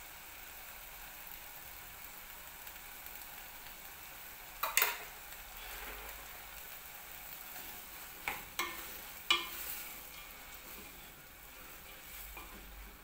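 Omena and tomatoes sizzling steadily in a pot on a gas burner, with a few sharp clicks and knocks from about the middle on. A wooden spoon starts stirring near the end.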